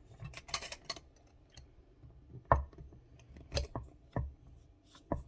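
Glass jar and its lid being handled and closed: a few quick clicks, then about four separate sharp knocks, the loudest about two and a half seconds in.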